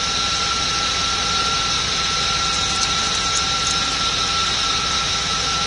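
A steady mechanical hum with a constant high whine through it, running unchanged.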